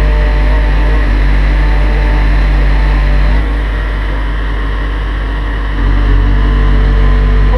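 Diesel engine of a mobile crane running under load as it hoists a large glass pane, a steady low drone that eases off about three and a half seconds in and picks back up near six seconds.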